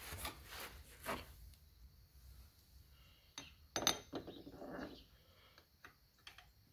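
Faint metal clinks and light knocks of a starter clutch and its gear being worked onto an engine crankshaft by hand: a few in the first second, then a cluster, some with a brief ring, about halfway through.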